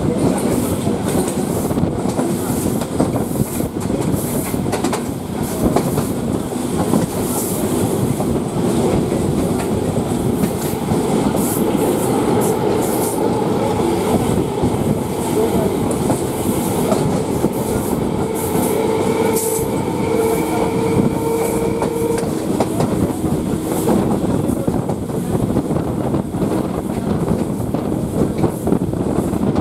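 Suburban electric local train running at speed, heard from an open door of the coach: steady rumble of wheels on rail with clickety-clack over the rail joints and wind rush. A steady whine of wheels on rail rises out of it for a few seconds past the middle.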